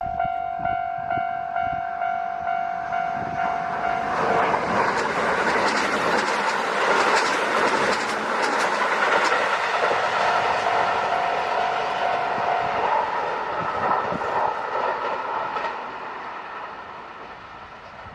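Japanese level-crossing alarm ringing in a steady pulse of about two strokes a second, then a Kintetsu Nagoya Line train passes over the crossing, its wheels clattering over the rail joints, loudest in the middle and fading away near the end.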